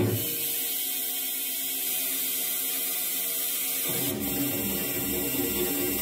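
Experimental electronic music made from a looped drum beat processed through synthesizers and effects in the frakMSP suite. The low pulsing beat drops out at the start, leaving a steady high hiss and thin held tones, then comes back with a click about four seconds in.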